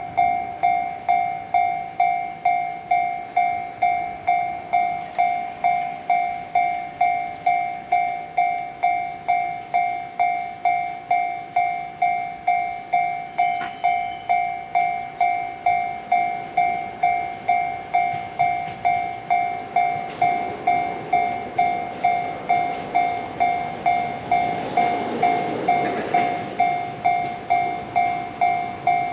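Japanese level crossing alarm ringing a steady electronic clang, about one and a half strikes a second. An approaching electric train's running noise rises under it from about twenty seconds in.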